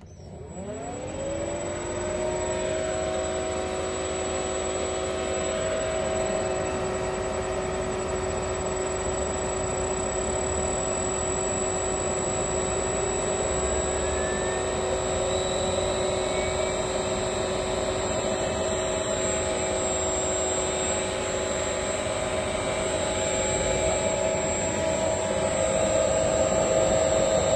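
Electric motor driven by a Siemens Micromaster 440 inverter, spinning up within about a second and then running steadily with a whine of several pitches.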